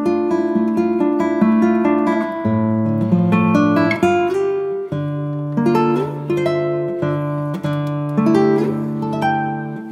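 Background instrumental music on acoustic guitar: plucked notes in a steady picking pattern over bass notes that change every second or so.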